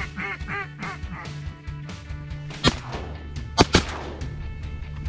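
Duck call blown in a fast, evenly spaced series of hen-mallard-style quacks that fades out about a second in. Then three shotgun shots, the last two close together.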